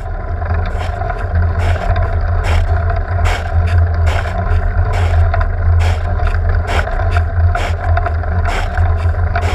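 Car driving in heavy rain, heard from inside: a steady low drone of engine and tyres on the wet road, with the windscreen wipers swishing a little more than once a second.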